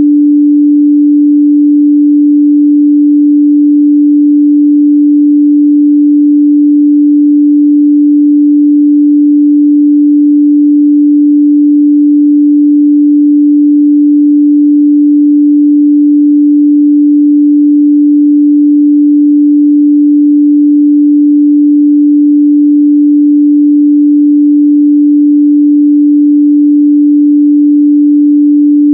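A continuous, steady 293 Hz sine-wave test tone, a single pure pitch held at a constant loud level.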